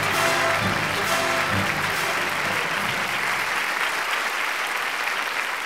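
Audience applause over play-on music with a steady beat; the music fades out a little past halfway and the applause goes on.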